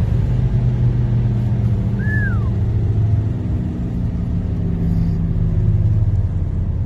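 Car engine and road noise heard from inside the cabin while cruising fast on a highway: a steady low drone. A short high chirp that falls in pitch sounds once, about two seconds in.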